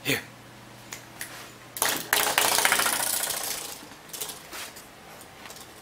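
Spring door stop on a baseboard flicked and left vibrating: a rapid buzzing rattle that starts suddenly about two seconds in, after a lighter hit just before, and dies away over about two seconds. A few light taps and knocks come before and after it.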